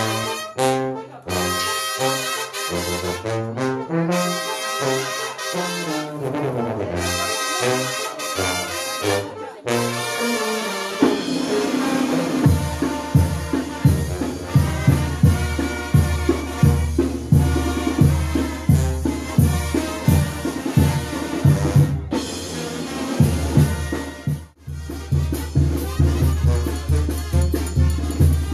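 A Mexican banda brass band playing, with trumpets and trombones carrying the melody in phrases broken by short stops. About twelve seconds in, a steady low beat comes in under the brass and carries on.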